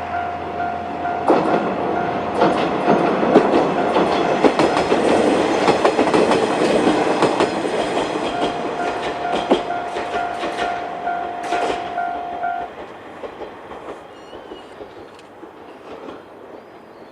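Japanese level-crossing warning bell ringing in its standard repeating ding pattern while a two-car diesel railcar train (Isumi 350 type and KiHa 20) runs over the crossing, its wheels clicking over the rail joints. The train noise swamps the bell for several seconds. Once the train has cleared, the bell stops about twelve seconds in.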